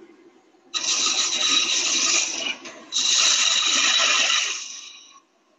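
A turning tool cutting into a spinning wooden blank on a lathe, a scraping hiss in two cuts about two seconds each, the second trailing off near the end.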